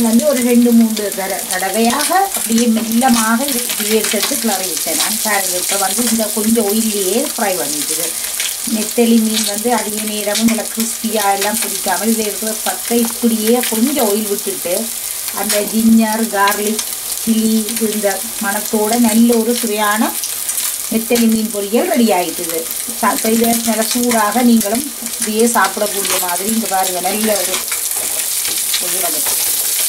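Small nethili (anchovies) frying in a little oil in a non-stick pan, sizzling steadily while a wooden spatula stirs and turns them. A wavering pitched sound runs underneath, breaking off every second or so and dying away near the end.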